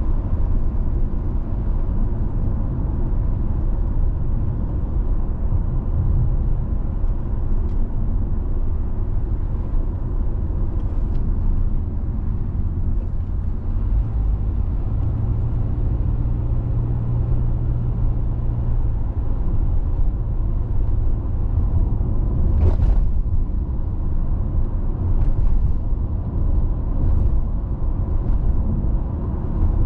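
Car driving on a rural road: a steady low rumble of tyres and engine, with a single short knock about 23 seconds in.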